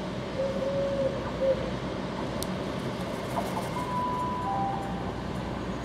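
CrossCountry Voyager diesel multiple unit approaching slowly: its underfloor diesel engines running and its wheels on the rails in a steady, even sound.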